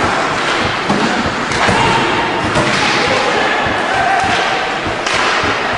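Ice hockey play at the rink: repeated thuds and slams of the puck, sticks and players against the boards and glass, over a steady din with shouting voices.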